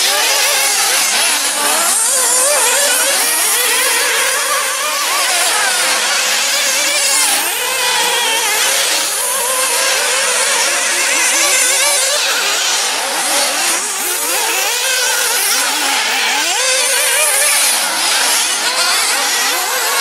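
Several 1/8-scale nitro off-road RC buggies racing, their small two-stroke glow-fuel engines revving up and down over one another without a break.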